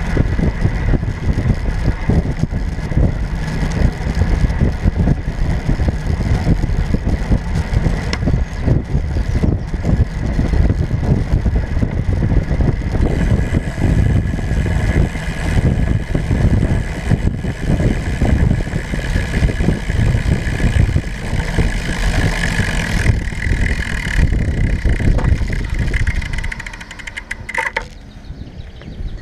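Wind buffeting the microphone of a handlebar-mounted camera on a moving road bike: a steady, gusty rush. It drops away sharply near the end.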